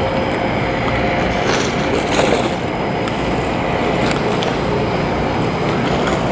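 Steady outdoor street noise: a continuous rumbling hiss with a faint steady hum and a few light clicks.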